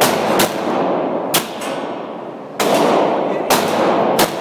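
Handgun shots at an indoor shooting range: about six sharp reports at uneven intervals, each followed by echo off the range walls.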